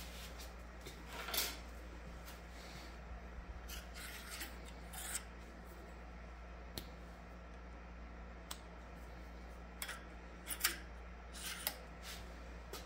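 Small metal pen-mandrel parts handled by hand. Bushings and a turned blank slide and knock on the steel mandrel, making scattered light metallic clicks and brief scrapes, with a few sharper clicks in the second half.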